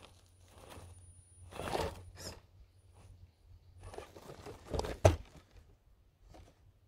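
RC rock crawler's tyres scrabbling and crunching against rock in short, irregular bursts, with a sharp knock about five seconds in.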